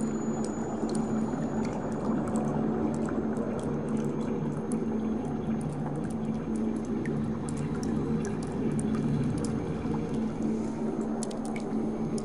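Water heard underwater through a diving camera's housing: a steady rush and bubbling of water over a low hum, with many small clicks and ticks scattered through it.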